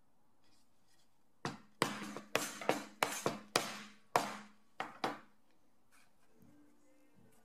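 About ten sharp hammer blows on a steel rivet setter, setting brass rivets through a leather sheath, each blow with a short ring. They start about a second and a half in and stop about five seconds in, with light handling of small parts before and after.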